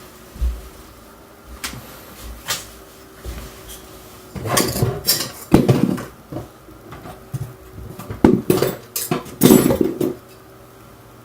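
Small hard objects clattering and knocking while someone rummages for a screw tray and handles it. Scattered clicks are followed by two louder bursts of clatter, one around the middle and one near the end.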